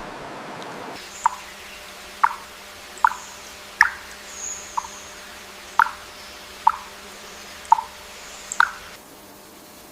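A series of about ten short water plops, like drops falling into still water, roughly one a second and each rising a little in pitch.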